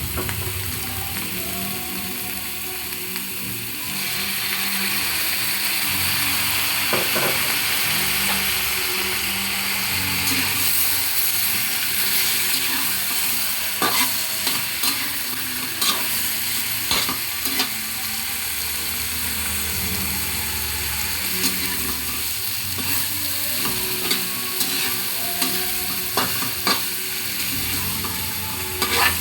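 Food sizzling in a hot pan while being stirred, the frying hiss getting louder about four seconds in, with sharp clinks of a cooking utensil against the pan through the second half.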